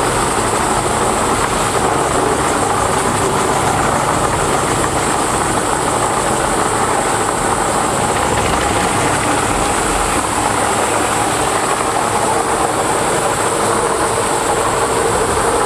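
Morbark 2755 flail chipper running steadily, a loud continuous machine noise with no let-up.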